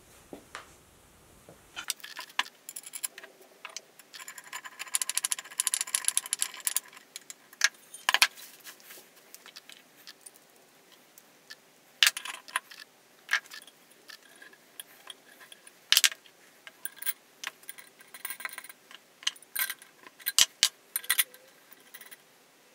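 Aluminium jig parts, bolts and hand tools clinking and knocking as the jig is put together by hand: scattered sharp metallic clicks, with a denser jingling rattle about four to seven seconds in.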